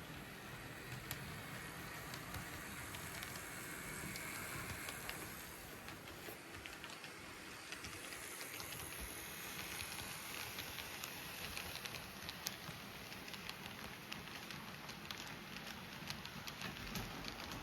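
Athearn model locomotive running along its track: a faint steady whir with many small irregular clicks from the wheels on the rails.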